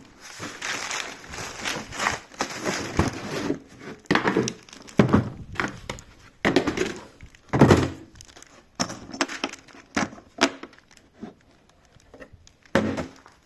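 Cardboard box and plastic packaging being handled and opened: crinkling and rustling broken by irregular knocks and thunks.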